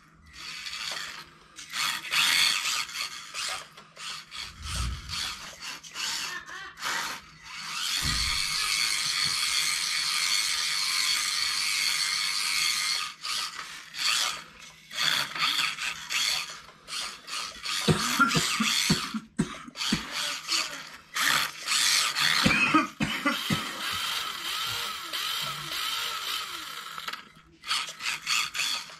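Kyosho Mini-Z RWD RC car's small electric motor and open gearbox whining in on-off bursts as the throttle is pulsed, the car driving about on a concrete floor. A few low thumps and sharp knocks come in between, most of them in the second half.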